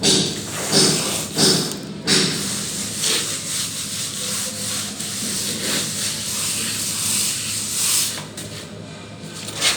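Plastering trowel scraping plaster over a wall: a few quick strokes, then a longer steady scrape that eases off near the end.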